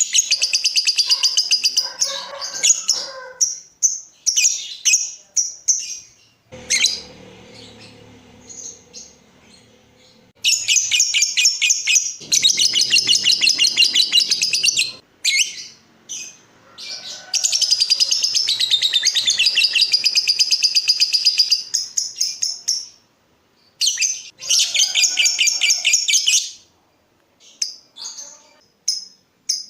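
Lovebird chattering in long, very rapid trills (the 'ngekek' song), several runs of a few seconds each broken by pauses and short chirps.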